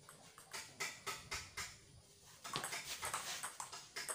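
Table tennis ball being hit back and forth in a rally, sharp clicks off the bats and the table. A few scattered taps come first, then a quick run of hits from about halfway through.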